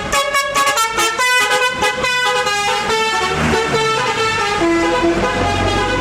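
Tour bus 'basuri' telolet horn playing a melody: a quick run of short stepped notes, then a few longer held notes. A low engine rumble builds under it near the end.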